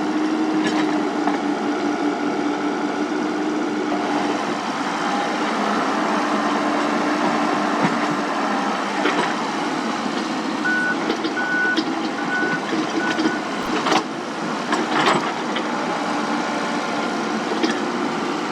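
Komatsu PC78US mini excavator's diesel engine running steadily under work. A little past halfway, a warning alarm gives four short high beeps, and a few sharp knocks follow near the end.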